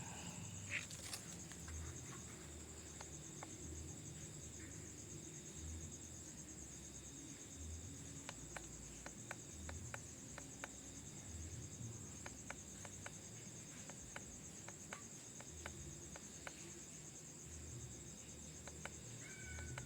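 Night insects chirring steadily in a fast, even high trill, with scattered faint clicks. A cat meows briefly near the end.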